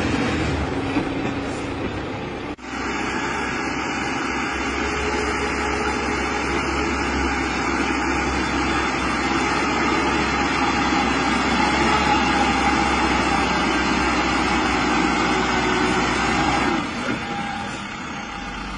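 Heavy machinery engines running steadily under load, a loaded log truck and an excavator pushing it. The sound breaks off for an instant about two and a half seconds in and drops somewhat near the end.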